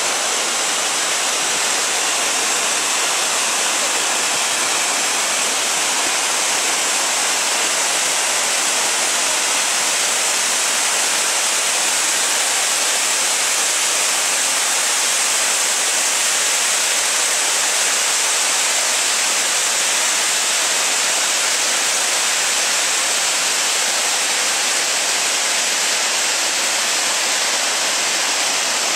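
Tall multi-stranded waterfall plunging onto rocks into a spray-filled pool: a steady, loud, hissing rush of falling water that does not let up.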